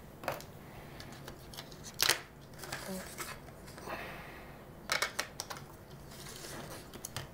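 Hands handling a small pocket-radio circuit board and its plastic case: several sharp clicks and taps, the loudest about two seconds in and a quick cluster near five seconds, with light rustling between.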